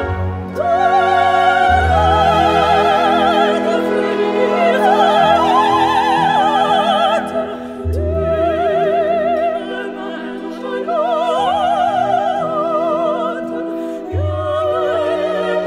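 Background music: an operatic singing voice with strong vibrato over orchestral accompaniment.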